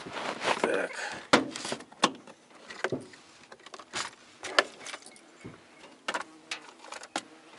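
Hands rummaging through a plastic multi-tray fishing tackle box for a heavier sinker: irregular sharp clicks, knocks and rattles of the plastic trays and loose tackle, with a rustle of handling in the first second.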